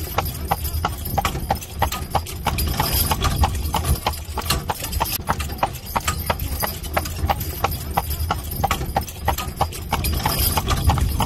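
Horse's hooves clip-clopping on a paved road as it pulls a carriage, an even beat of about three to four strikes a second over a steady low rumble.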